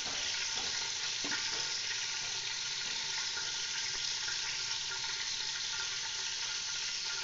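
Onions frying in hot ghee in a cooking pot: a steady, even sizzle.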